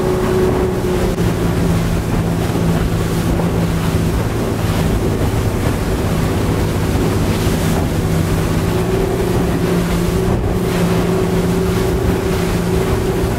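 Center-console fishing boat running fast over open sea: a steady engine drone over rushing water and wind buffeting the microphone.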